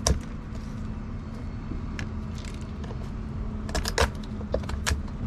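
Knife cutting boiled siri crabs in half on a wooden cutting board: a string of sharp clicks and cracks of shell and blade on wood, the loudest about four seconds in, over a steady low hum.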